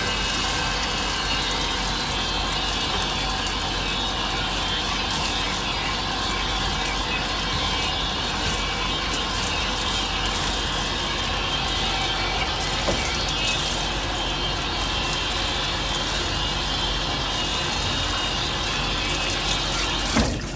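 Handheld shower sprayer running steadily, water spraying over a cat and onto a stainless steel grooming tub, then cut off near the end.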